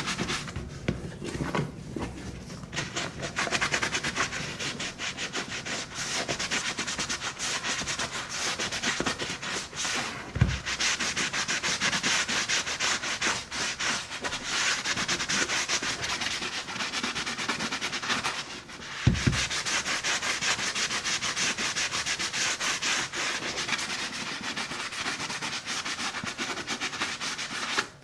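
A buffing glove rubbed briskly over the leather of a Red Wing boot, in fast, even back-and-forth strokes that briefly stop and restart, with a couple of soft low thumps as the boot is handled.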